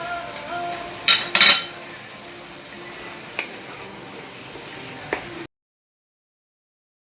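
Metal utensil clattering against a cooking pan, two loud strikes about a second in and lighter clicks later, over a steady frying hiss. The sound cuts off to dead silence about five and a half seconds in.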